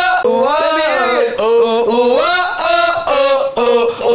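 A man singing a wordless vocal run: several phrases of held notes that slide up and down, with short breaks between them.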